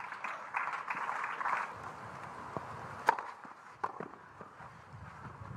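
Brief patter of spectator applause at a clay tennis court, then a few isolated sharp knocks on the court, the loudest about three seconds in.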